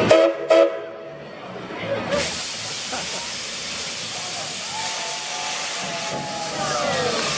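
Steam whistle of 1881 Baldwin steam locomotive No. 340 gives two short toots. About two seconds in, a steady hiss of steam starts blowing from the cylinder cocks at track level.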